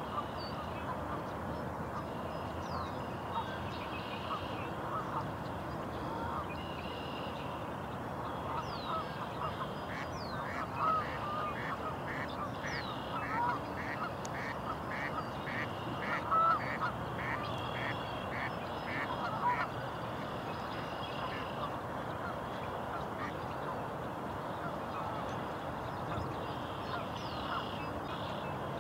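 Waterfowl calling on open water: a steady mix of short duck calls and honks throughout. An even run of short higher notes, a little under two a second, comes from about ten to twenty seconds in, with thin higher bird calls above.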